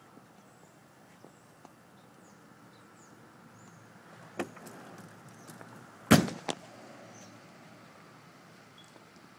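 A sharp knock about four seconds in, then a loud thump just after six seconds in with a smaller second knock half a second later, over a quiet outdoor background.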